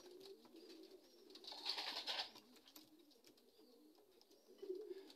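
Racing pigeons cooing faintly in low, wavering coos, with a brief rustle about two seconds in.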